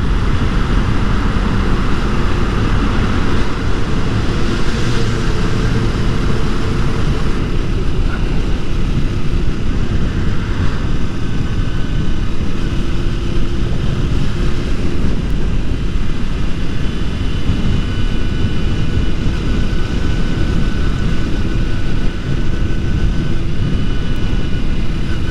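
Motorcycle riding at speed: a steady engine drone under heavy wind rush on a helmet-mounted camera's microphone.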